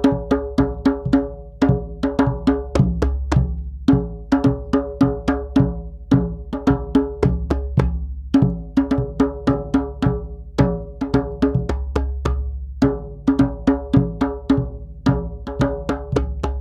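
A drum rhythm: quick, ringing strikes in repeating phrases about two seconds long, each phrase followed by a short pause, over a steady low drone. It cuts off suddenly at the end.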